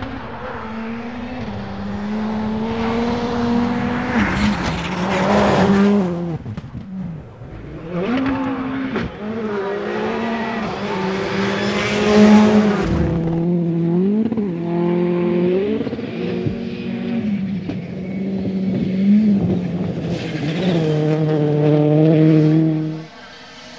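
Rally cars at full attack on loose stages, one after another: engines revving hard, their pitch climbing and dropping sharply with each gear change and lift, and several loud rushes of hiss as cars pass at speed and spray gravel. The engine sound cuts off abruptly near the end.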